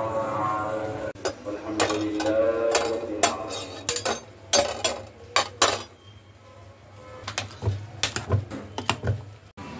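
A song with a singing voice plays for the first three seconds or so. Then a metal spoon clinks against a plate and a cooking pot in a run of sharp taps.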